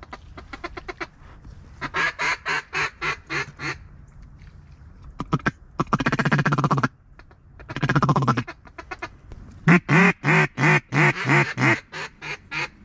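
Mallard duck call blown by a hunter: a quick run of quacks, then two bursts of rapid feeding chuckle, then a loud string of about a dozen quacks that fades toward the end.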